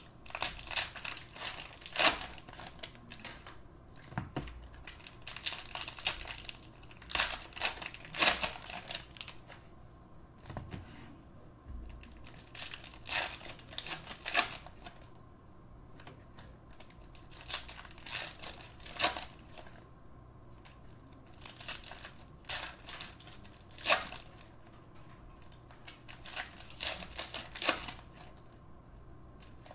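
Plastic cellophane wrappers of trading-card cello packs crinkling and tearing as the packs are ripped open and handled, in short irregular crackling bursts with brief pauses between.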